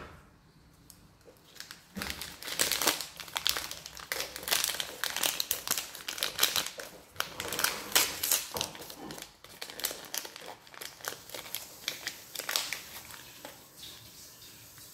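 A small printed wrapper bag being pulled open and crumpled by hand: a dense run of crinkling starts about two seconds in and thins out near the end.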